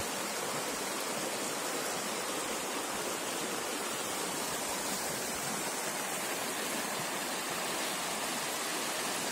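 Shallow, rocky stream flowing over stones and through riffles: a steady, unbroken rush of water.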